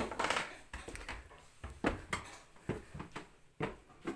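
Footsteps on a floor inside a house: a soft knock about every half second.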